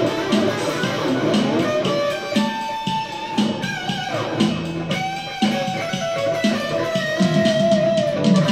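Electric guitar playing single-note lead lines with held notes; one note slides down a little before the middle, and a long note near the end is held with vibrato.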